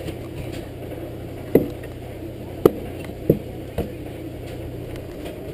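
Cleaver chopping through raw beef chuck onto a plastic cutting board: a handful of sharp knocks at uneven intervals, starting about a second and a half in, over a steady low hum.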